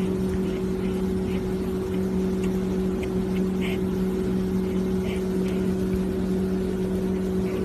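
Kitten purring steadily, close to the microphone, while it is stroked under the chin.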